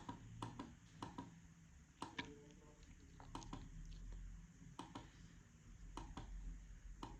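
Faint, scattered clicks, roughly one every second or so, over near-silent room tone.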